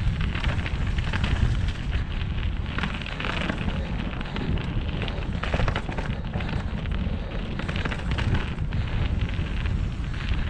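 Mountain bike descending a rough trail at speed: a heavy wind rumble on the microphone under continuous clattering and rattling from the bike and tyres over bumpy ground, with frequent sharp clacks.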